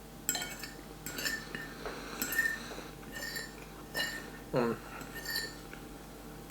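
Metal cutlery clinking against a dish, about seven short ringing clinks spread over several seconds. A short falling squeak comes about four and a half seconds in.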